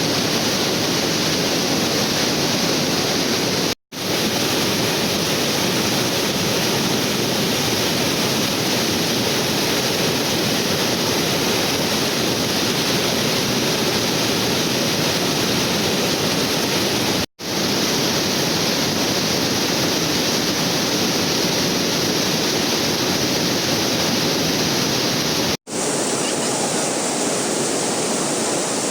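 Waterfall rushing in a steady, loud roar of falling water. It cuts out for an instant three times, and its tone shifts slightly after the last break.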